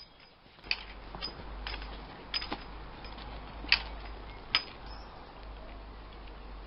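About seven sharp clicks and clinks from the fittings of a dog cart's harness and shafts as they are handled on a Newfoundland, the loudest nearly four seconds in, over a low steady rumble.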